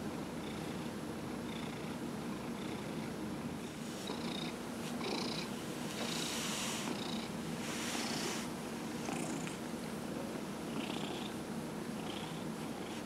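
Domestic cat purring steadily as it is massaged by hand, with a couple of brief rustles about halfway through.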